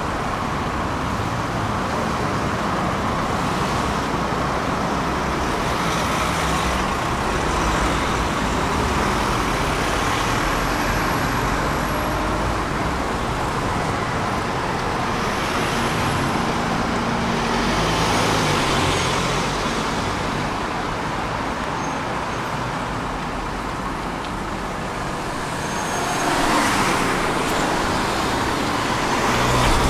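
City street traffic: cars and vans driving past close by, a steady rumble that swells each time a vehicle goes by, loudest near the end.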